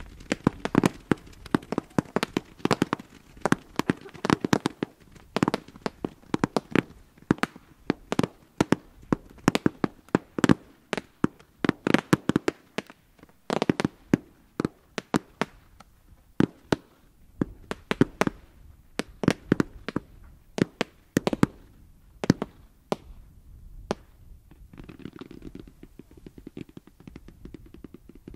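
Consumer firework batteries firing: a rapid, irregular string of launch bangs and small aerial bursts. The shots are dense for the first fifteen seconds or so, then thin out and stop a little past twenty seconds, leaving a faint hiss.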